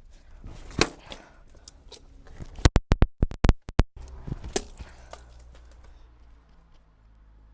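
A computer keyboard being smashed: one hard hit about a second in, then a quick run of about eight loud bangs near the middle and one more just after, breaking the keyboard.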